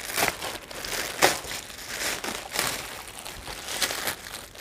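Clear plastic packaging wrap crinkling and rustling as it is pulled off a baby car seat and handled, going unevenly with a few louder crackles.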